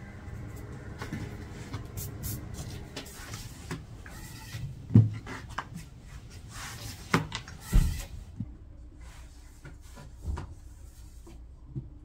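Several knocks and clatters of objects being handled, the loudest about five seconds in and a pair just after seven seconds, over a low steady background noise.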